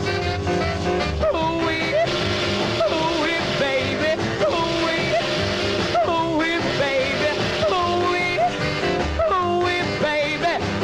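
Background music in a rock-and-roll style, with guitar and a melody line that slides between notes.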